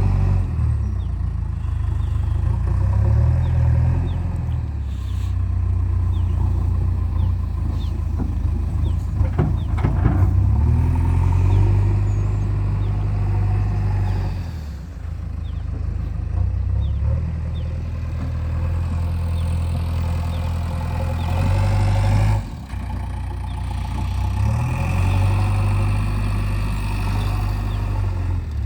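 Diesel engines of a backhoe loader and a farm tractor running under work, the engine speed rising and falling several times as the loader digs and lifts. A brief clatter about ten seconds in, and the engine note drops suddenly about three quarters of the way through.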